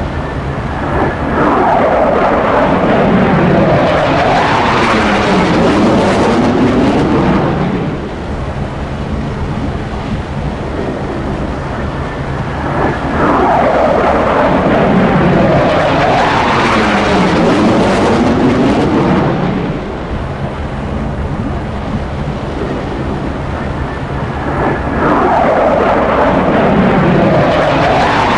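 F-16C fighter jets passing close by with a loud jet roar. There are three passes about twelve seconds apart, each swelling up and sweeping down in pitch as the jet goes past.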